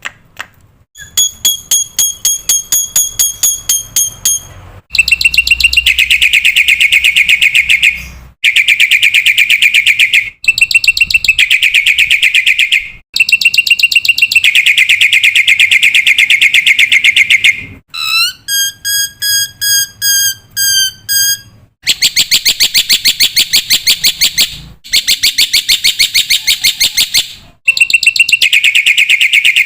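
Black-winged myna (jalak putih) calling loudly: bursts a few seconds long of very fast, rattling chatter, separated by short pauses. A series of clear whistled notes comes near the start and another about two-thirds of the way in.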